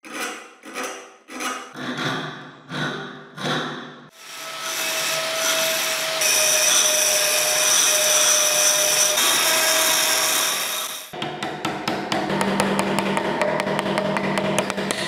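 About six short scraping strokes of a steel tool on the rusted metal cap of a kukri handle. Then a rotary tool with a sanding drum grinds a rusted rivet for about seven seconds with a steady whine. It ends in faster scraping with rapid ticks as the steel tool works the cap.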